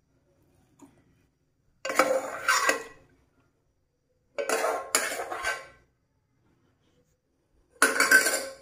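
Metal spoon scraping and clinking against the inside of a pressure cooker while cooked rice is scooped out into a steel bowl, in three short bursts with pauses between.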